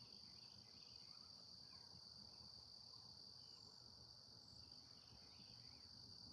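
Faint, steady high-pitched insect chorus, like crickets, with a few faint bird chirps.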